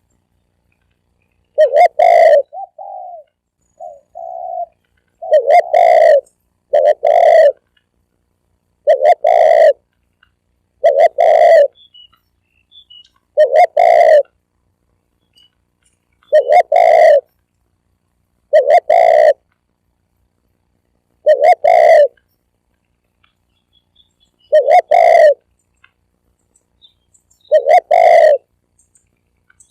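Spotted dove cooing close up: loud, short, low coos repeated every two to three seconds, the decoy call used to lure wild spotted doves. A few softer short notes follow the first coo.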